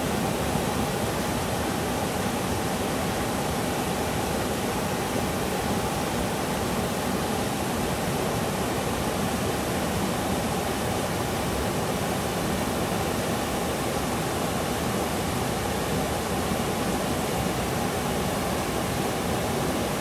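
Waterfall pouring over a rock ledge into a pool, a steady rush of falling water close by.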